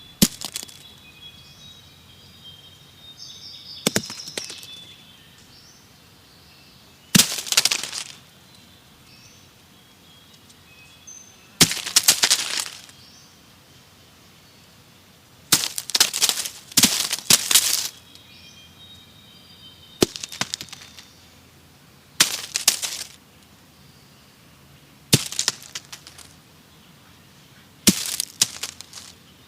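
Pine cones dropped one at a time onto dry forest leaf litter: each lands with a sharp crack and a short crunching rustle of leaves, about ten drops a few seconds apart, two of them close together in the middle. Birds chirp faintly between the drops.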